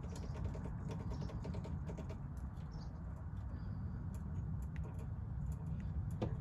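Steady low background rumble with scattered faint clicks and ticks.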